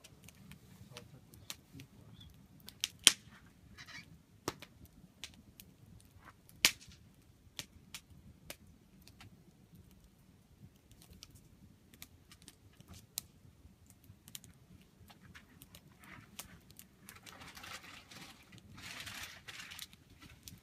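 Wood campfire crackling, with scattered sharp pops and two much louder pops about three and six and a half seconds in.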